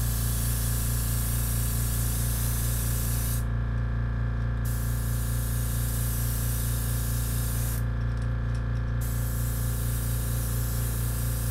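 Badger airbrush spraying in long bursts, its hiss stopping twice briefly as the trigger is let off, over the steady low hum of an air compressor.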